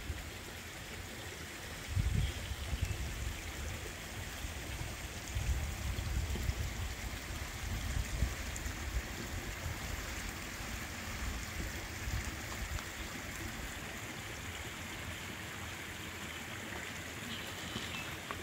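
Small creek running over stones, a steady trickling hiss of flowing water. A few low rumbling bumps come in about two seconds in and again around six and eight seconds.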